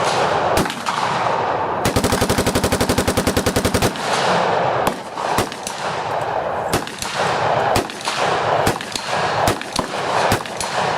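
Gunfire from several guns: a rapid full-auto burst lasting about two seconds, starting about two seconds in, followed by scattered single shots at irregular intervals.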